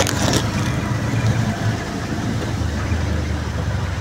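Auto-rickshaw engine running steadily, heard from inside the cabin, with a hiss of tyres on a rain-soaked road. A few sharp clicks sound right at the start.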